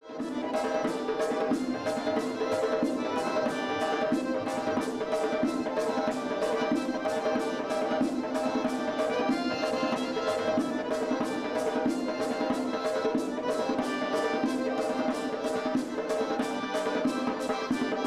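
Accordion playing a fast folk tune over a steady, quick beat of sharp percussive clicks, about four a second. The music starts abruptly.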